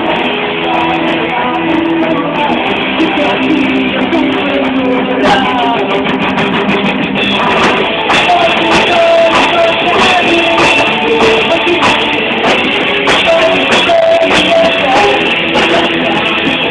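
Live rock band playing an instrumental passage: electric guitars with drums, loud and steady, with a sustained guitar lead line.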